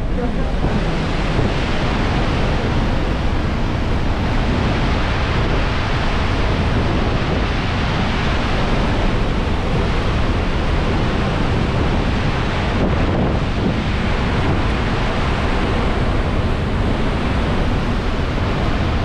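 Horseshoe Falls at Niagara, the plunging water heard up close at its base: a loud, steady rushing roar.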